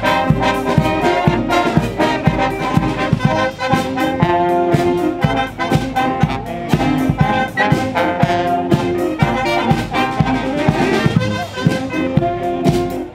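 Dweilorkest, a Dutch street brass band, playing: a row of trombones with trumpets and sousaphone, held brass chords over a steady drum beat.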